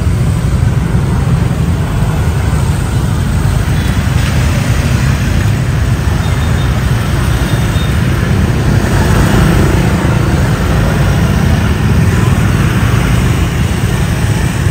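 Steady road-traffic noise with a heavy low rumble and no breaks.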